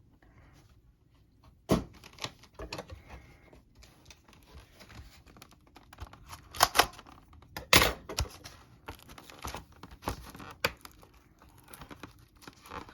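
A trading-card box and its packaging being closed up and handled by hand: irregular clicks, taps and rustles, the sharpest about two seconds in and a cluster around seven to eight seconds.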